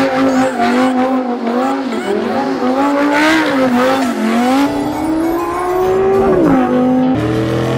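Audi R8's engine revving hard during a tire-smoking burnout. Its pitch wavers up and down, then climbs steadily and drops sharply about six and a half seconds in.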